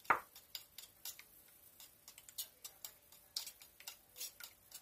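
Fork beating egg in a bowl: the metal tines click against the bowl's side in quick, irregular strokes, the loudest just at the start.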